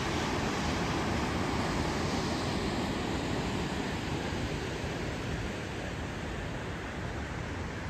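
Steady rushing of Linville Falls, a waterfall pouring into a rocky gorge, with a gusty low rumble of wind on the microphone; the rush eases a little in the second half.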